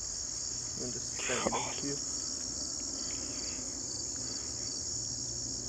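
Chorus of crickets: a steady, high-pitched chirping that pulses evenly.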